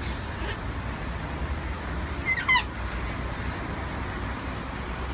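A single short animal cry about halfway through, gliding steeply down in pitch, over a steady low rumble.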